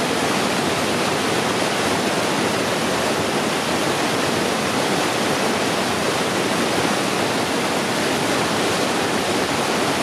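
Creek water rushing steadily through a small whitewater chute between rocks, a constant, even wash of noise close to the microphone.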